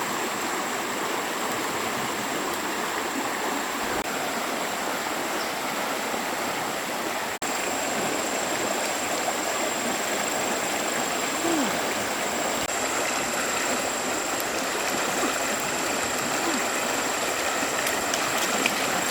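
Steady rushing of a stream's running water, with a thin, steady high-pitched tone above it.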